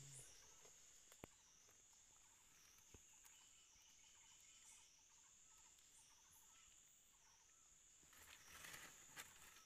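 Near silence with a faint, steady high-pitched insect drone. Two light clicks come in the first few seconds, and a soft rustle of gravel and leaves comes near the end.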